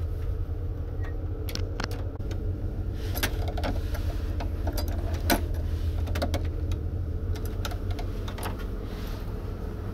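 Steady low hum of a ship's machinery heard inside a cabin. Scattered clicks and rustles of handling come over it, and a door opens near the end.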